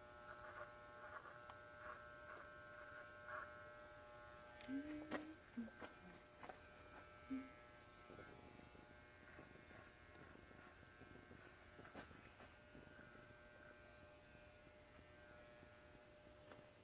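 Near silence with a faint steady electrical hum. A few faint, short, indistinct sounds come about five to seven seconds in.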